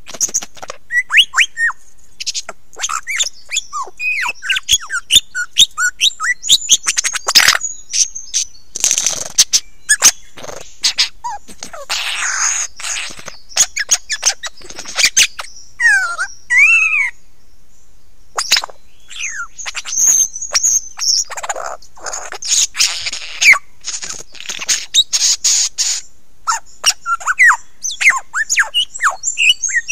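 Lyrebird singing right at the microphone: a loud, varied run of quick whistled notes and sharp clicks in rapid phrases, with a short pause about halfway through.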